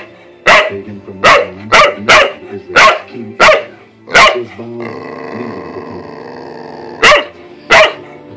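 A dog barking loudly in short, sharp barks: about nine in quick succession, a pause of nearly three seconds, then two more near the end.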